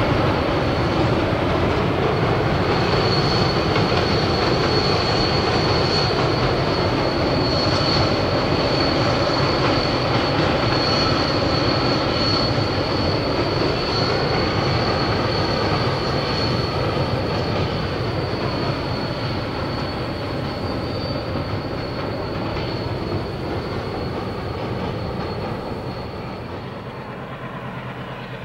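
Freight wagons rolling across a steel trestle railway viaduct: a steady rumble with a continuous high-pitched wheel squeal. The sound fades over the last ten seconds, and the squeal stops shortly before the end.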